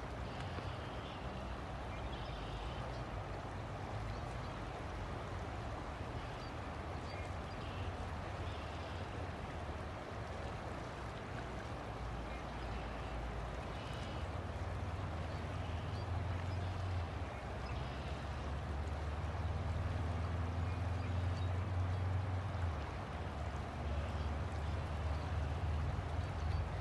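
River water flowing steadily, with a low rumble underneath that grows louder in the second half.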